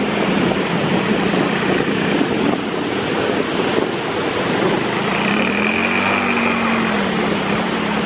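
Steady wind rushing over the microphone, mixed with the wash of surf on the beach. A faint pitched sound rises and falls briefly about five seconds in.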